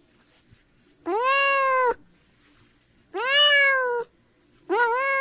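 Kitten meowing: three high mews, each just under a second long, that rise and then ease down in pitch, with a pause of about a second between them.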